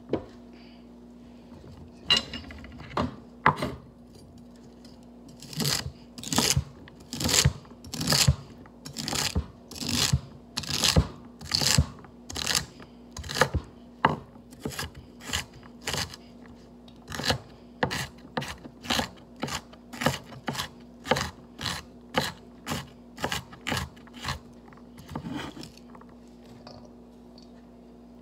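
A knife chopping vegetables on a cutting board: a few cuts, then a long steady run of chops at just under two a second that stops a few seconds before the end.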